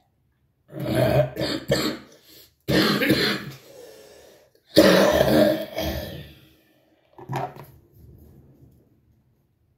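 A man coughing and clearing his throat: three long bouts of coughing, then a short one near the end.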